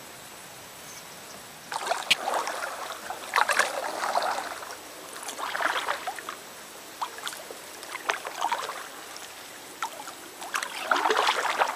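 Kayak paddle strokes: water splashing and dripping off the paddle blades as they dip, in bursts every second and a half to two seconds, starting about two seconds in.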